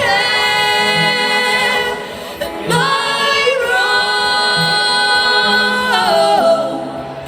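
Live female vocals holding two long sung notes, with a short break about two seconds in, over low acoustic guitar notes; the second note slides down near the end.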